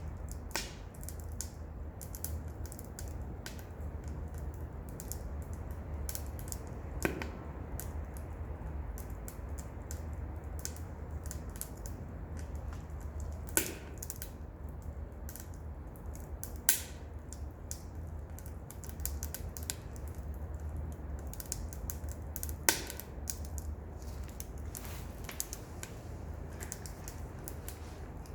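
Wood crackling as it burns in a wood stove, pallet and scrap box wood popping. There are frequent small crackles and, every few seconds, a sharper loud pop, over a steady low rumble.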